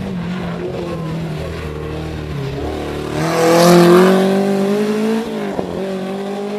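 Simca 1000 Rallye 2 race car's rear-mounted four-cylinder engine pulling hard uphill. It grows loud as the car passes close by about three and a half seconds in, its note rising as it accelerates, then falls away as it heads off up the road.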